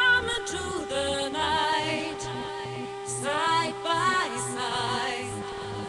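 Music playing over a sonido sound system: a wavering melody line over a continuous held note and a pulsing bass.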